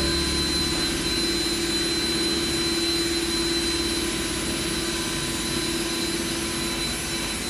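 Steady mechanical whir with a constant hum, unchanging throughout.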